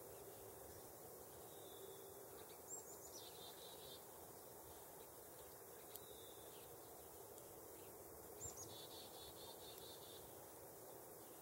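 A small bird calls faintly twice, each call a quick high note or two followed by a short run of repeated lower notes, over a quiet outdoor background hiss with a faint low hum.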